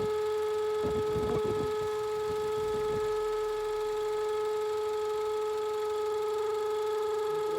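Steady, high-pitched whistle of a vacuum leak on a running Land Rover Range Rover engine, holding one pitch throughout. Some brief rough handling noises come in over it during the first few seconds.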